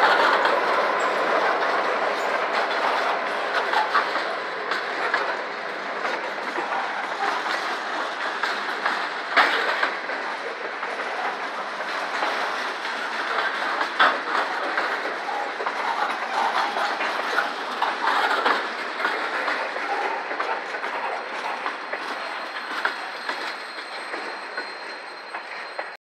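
Freight train of covered hopper cars rolling past, wheels clacking over rail joints with a few sharper knocks. The sound fades away as the end of the train passes.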